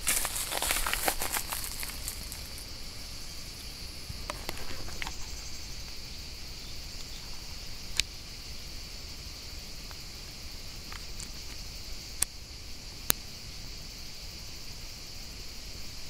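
Rustling of leafy undergrowth for about the first two seconds, then a steady high insect drone with three single sharp clicks, about eight, twelve and thirteen seconds in.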